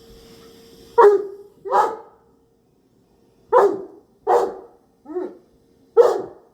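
English Mastiff barking at a robot vacuum: six deep barks, mostly in pairs, the fifth weaker, over a faint steady hum.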